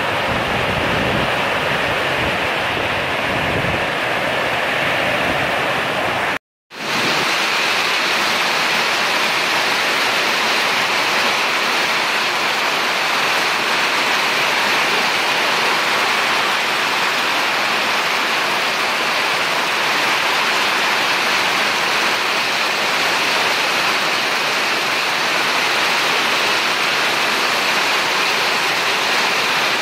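Loud, steady rush of water, like a heavy downpour or fast-flowing floodwater, cutting out briefly about six and a half seconds in and then running on unchanged.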